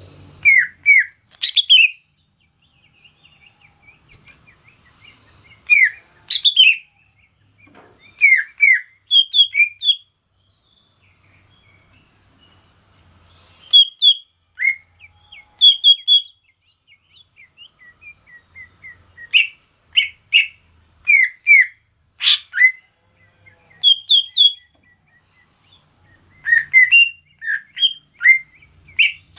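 Cucak ijo (green leafbird) singing: loud, sharp whistled and chirping notes in short clusters every few seconds, over a steady high-pitched hiss.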